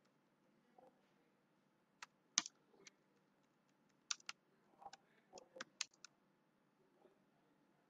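Faint computer keyboard keystrokes, a few at a time with pauses between them, as text is typed and corrected.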